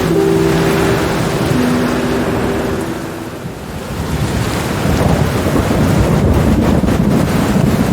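Steady rain with thunder. The rumble dips a little past a third of the way in, then swells from about halfway and holds to the end.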